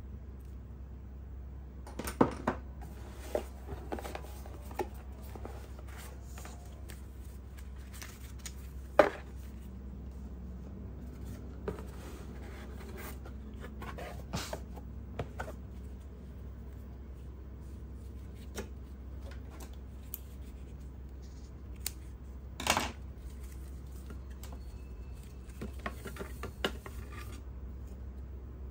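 Handling of a camera's retail packaging: scattered light clicks, taps and rubbing of cardboard, a paper-pulp tray and power cables, with two sharper knocks about nine seconds in and about twenty-three seconds in. A steady low hum runs underneath.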